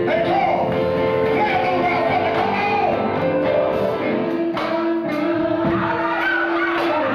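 Live gospel song: a lead voice sings a wavering, ornamented line over held keyboard chords and a band accompaniment.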